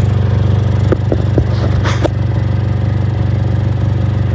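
2006 Honda Accord 2.4L inline-four idling steadily, its exhaust leaking through a big crack across the muffler where metal rods were welded in place of a stolen catalytic converter. A few brief knocks come about one to two seconds in.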